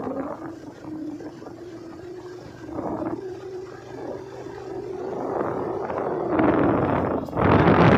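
Motorcycle engine running at a steady note while riding, under wind buffeting on the microphone that swells and is loudest in the last couple of seconds.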